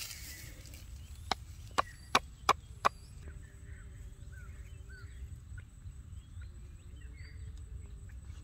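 Five sharp clicks about a third of a second apart, starting about a second in. After that, faint short chirps of birds over a low outdoor rumble and a thin steady high hum.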